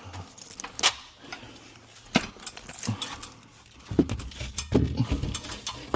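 Scattered knocks and clatter, growing into heavier thumps from about four seconds in: a ladder being fetched and set up.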